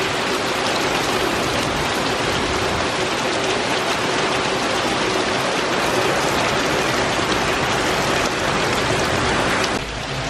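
Heavy rain pouring down in a thunderstorm, a dense steady hiss of downpour, slightly quieter near the end.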